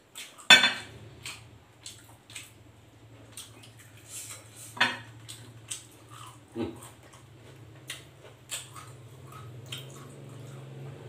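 Eating sounds at a table: a loud clink of a glass bowl being handled about half a second in, then scattered clicks and mouth smacks while fried chicken is eaten by hand, over a low steady hum.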